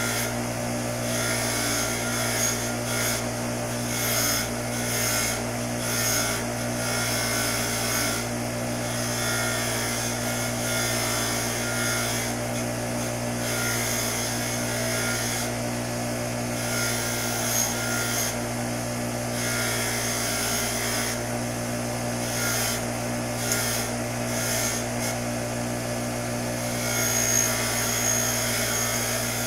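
Bench grinder running with a steel wire wheel: a steady motor hum under a scratchy rasp that swells and fades as a small steel part is held against the side of the spinning wheel to clean it.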